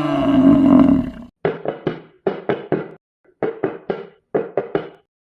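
Made-up yak sound effect: a long, drawn-out low call that ends about a second in, followed by rapid short grunts in clusters of three or four.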